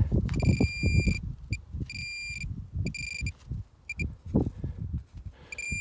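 Metal detector beeping in a high, steady tone in on-off bursts of different lengths, sounding over loose soil to signal buried metal. Underneath, the soil being handled rustles and knocks irregularly.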